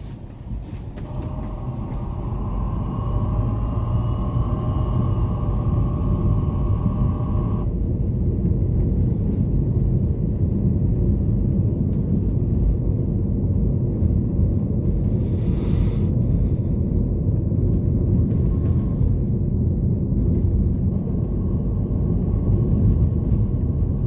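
Steady low rumble of road and engine noise inside a moving Toyota Corolla. In the first several seconds a wavering tone is heard over it and cuts off suddenly.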